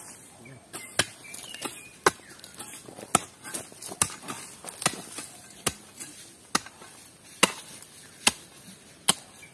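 Garden hoes chopping into the ground while digging holes: about a dozen sharp strikes, roughly one a second.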